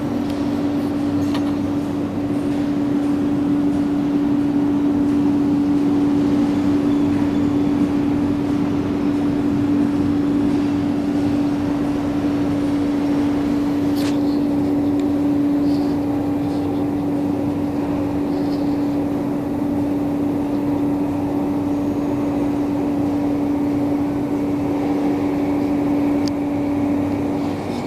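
Steady industrial machinery hum with one strong, unchanging tone under a noisy rumble, and a single sharp click about halfway through.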